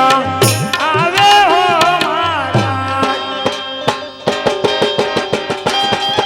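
Gujarati folk devotional music: tabla-style hand drums with sliding bass strokes under a melodic line that bends in pitch. About three seconds in, the melody settles into held notes over quick, even drum strokes.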